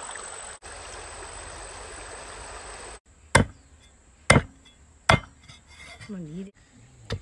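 Stream water rushing steadily for about three seconds, then a meat cleaver chopping a raw whole chicken on a thick round wooden chopping block: three heavy chops about a second apart and a lighter knock near the end.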